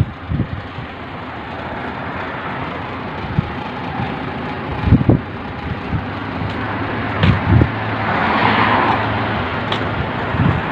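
Road traffic: a steady wash of vehicle noise, with one vehicle passing louder about eight seconds in. A few low thumps are mixed in.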